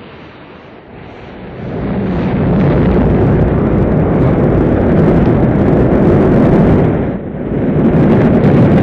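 Rocket engines at liftoff: a loud, deep rumble that builds up about a second and a half in, dips briefly about seven seconds in, then comes back.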